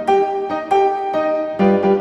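Background music: a piano-like keyboard playing a melody of separate notes, about two a second.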